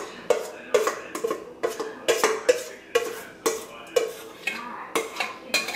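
Stainless steel mixing bowl knocked and scraped by hand as meatloaf mixture is emptied out of it: a quick run of sharp knocks, about two or three a second, each leaving a short metallic ring.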